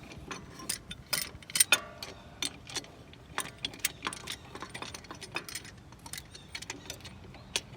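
Metal clinking and rattling as a C-clamp and an old brake pad are handled and set against a dual-piston brake caliper. The clicks are irregular and sharp, and they come thickest in the first two seconds.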